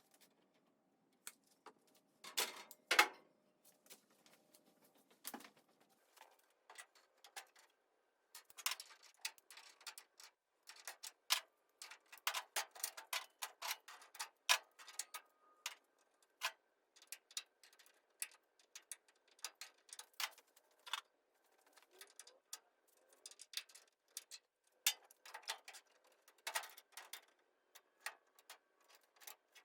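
Scattered light clicks and taps at irregular intervals, from tools being handled while measuring in a shop.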